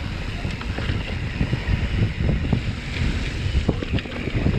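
Mountain bike riding fast over a dirt singletrack: wind buffeting the microphone with a steady low rumble, and the tyres and bike clattering in irregular knocks over bumps and roots.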